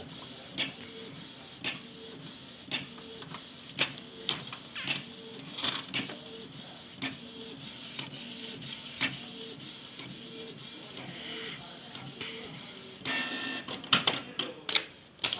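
Inkjet printer printing a page: the print-head carriage runs back and forth with a steady hum and a click at each pass, about two a second. Near the end comes a louder whirr and a few sharp clicks.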